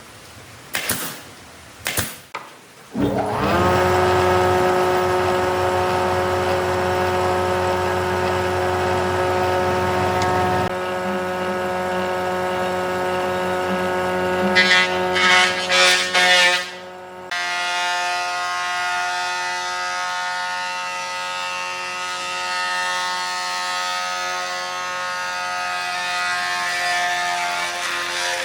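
Electric motor of a power tool winding up and running at a steady whine, with a few short louder bursts about fifteen seconds in. It breaks off briefly near seventeen seconds, then runs steadily again.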